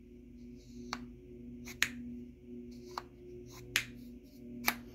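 Sharp clicks from a stubby bit-holder screwdriver's sliding bit magazine being pushed out and snapped back into the handle, about six clicks roughly a second apart, over a faint steady hum.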